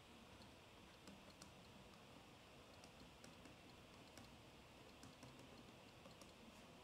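Near silence with faint, irregular light clicks and taps of a stylus on a tablet surface as words are handwritten.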